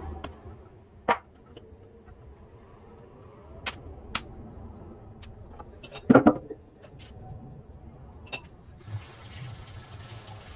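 Scattered clicks and knocks, the loudest a short clatter about six seconds in, then near the end a steady rush of water starts as the washing machine begins filling.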